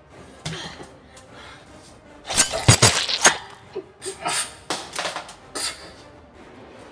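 Sharp clattering, clinking knocks: a quick loud cluster about two and a half seconds in, then several single knocks over the next three seconds.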